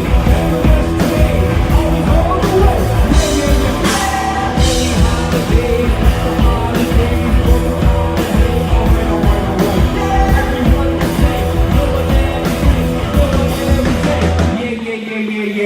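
Live rock band playing loud: drums, bass and electric guitar, a section without clear lyrics. Near the end the bass and drums drop out for about a second, a short break before the band comes back in.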